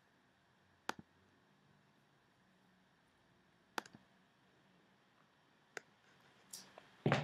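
Near silence broken by three sharp single clicks, about three seconds apart, then a few knocks and rustles near the end as a person gets up from a seat.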